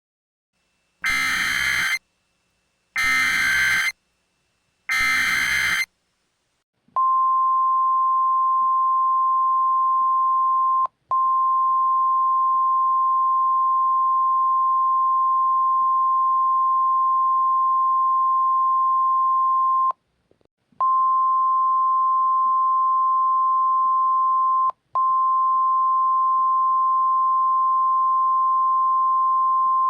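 Three short buzzy bursts of Emergency Alert System SAME header data, each about a second long. These are followed by the steady single-pitch 1050 Hz NOAA Weather Radio warning alarm tone, which breaks off briefly three times. Together they are the signal that a warning-level alert is about to be broadcast.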